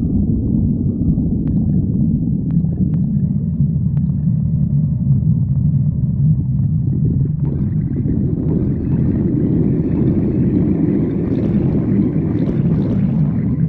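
A person's stomach growling: a continuous low rumble with a few faint clicks in the first few seconds, turning higher and busier from about halfway through.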